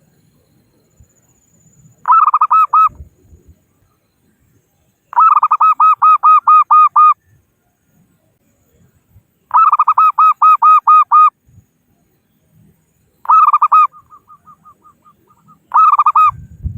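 Zebra dove (perkutut) calling in five bouts of rapid, evenly spaced cooing notes, about five a second, each bout lasting one to two seconds with quiet pauses between. A softer run of notes trails the fourth bout.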